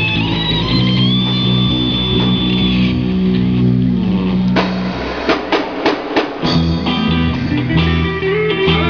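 Live rock band playing an instrumental passage: electric guitars over bass and drums. About four and a half seconds in the bass drops out for a short break of sharp drum hits, and the full band comes back in about two seconds later.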